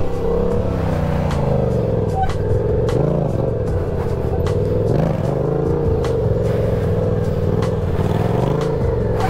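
Yamaha stunt motorcycle's engine running on a held throttle, its revs rising and falling gently as the rider rides and balances a wheelie.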